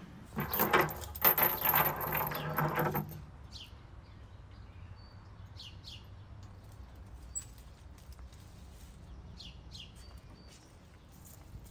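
Handling noise for about three seconds: rustling and scraping as the foil-wrapped meat and its binding wire are worked on a metal pole. After that it quiets to background, with short bird chirps now and then.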